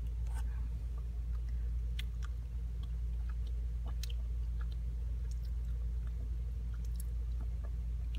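A person chewing a rubbery black Pontefract liquorice sweet, with faint, scattered wet mouth clicks. A steady low hum runs underneath and is the loudest thing heard.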